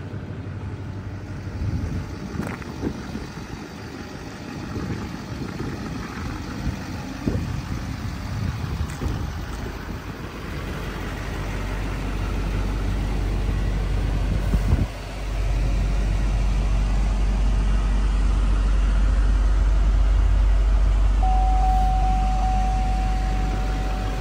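Pickup truck engine idling steadily, a low rumble that comes up strongly about halfway through after some knocks and handling noise. A steady high electronic beep joins it near the end.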